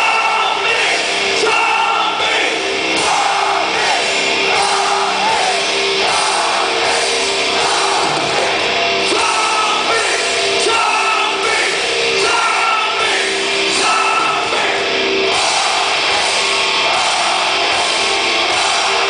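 Live heavy rock band playing loudly, with vocals over guitars and drums, heard from among the crowd in a large arena.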